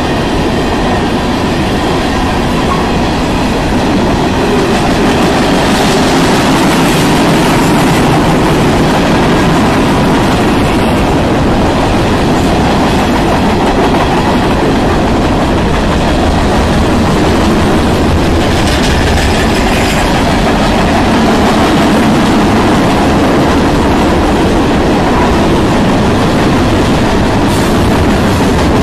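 Freight train rolling steadily past, loud: the continuous rumble of the freight cars' steel wheels on the rails.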